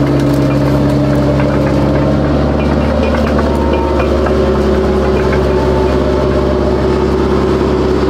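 Detroit Diesel 8V71T diesel engine in a Grant tank running steadily, its note shifting about three seconds in. It is passing unburned diesel through and blowing black smoke, which is the fault under test.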